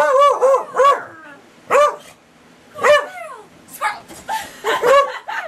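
Beagle barking: short, high barks that each rise and fall in pitch. Three come in quick succession at the start, then single barks about a second apart, then a quicker run of fainter barks near the end.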